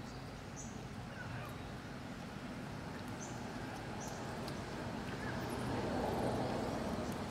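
Outdoor background sound: a steady low rumble with a few brief high chirps scattered through it, and a broader rush of noise that swells in the second half.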